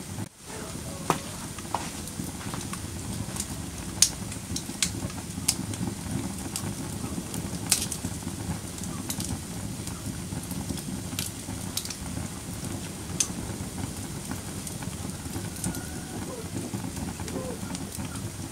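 Wood fire burning in a fireplace: a steady low rumble of flames with scattered sharp crackles and pops from the logs, a few of them louder.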